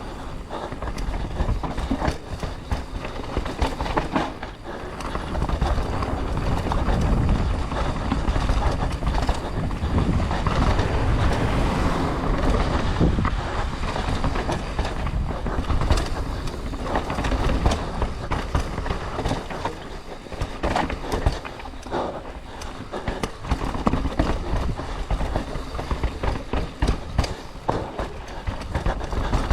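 Mountain bike ridden fast down a rough trail: tyres on dirt and rock, the bike's chain and parts rattling with frequent knocks, and wind rumbling on the microphone, heaviest through the middle.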